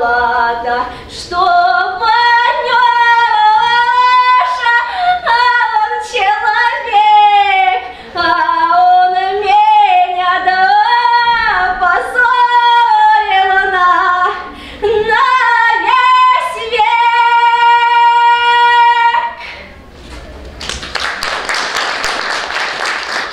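A woman singing a Russian folk song solo and unaccompanied. She ends on a long held note about nineteen seconds in, and after a short pause an audience applauds.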